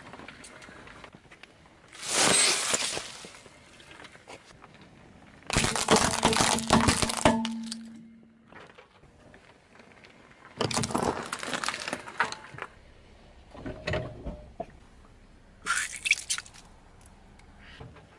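Car tyre rolling over and crushing objects on asphalt, in about five separate bouts of crunching and cracking with short quieter gaps between them. One is a small plastic tub of slime crackling as it gives way.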